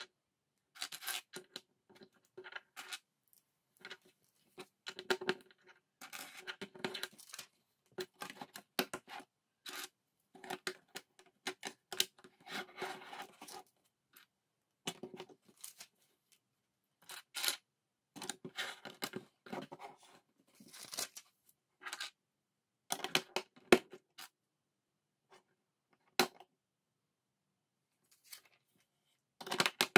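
Plastic LEGO bricks being pressed and clicked together and set down on a hard tabletop: irregular small clicks and light knocks with short pauses, sparser near the end.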